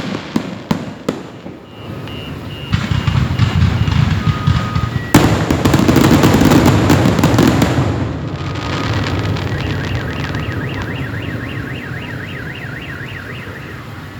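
Fireworks going off: a few sharp bangs, then one loud bang about five seconds in followed by a few seconds of dense crackling and rumble. A car alarm sounds through it, beeping near the start and then warbling fast up and down in the second half.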